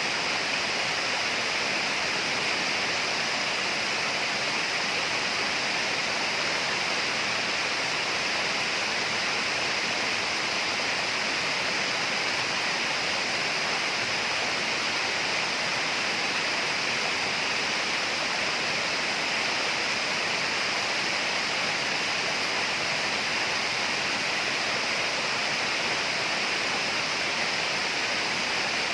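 Steady tropical rainforest ambience: an even, unbroken rushing noise, brightest in the upper range, that neither rises nor falls.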